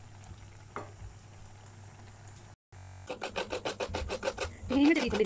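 Fresh coconut being grated by hand on a serrated scraper blade: fast, rhythmic rasping strokes, about five a second, starting about three seconds in after a quieter stretch.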